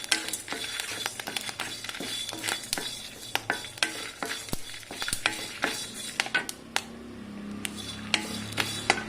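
Whole spices, mainly black peppercorns, being stirred while they roast in an iron kadai. The stirrer scrapes the pan and clicks sharply against it again and again, with a light sizzle underneath.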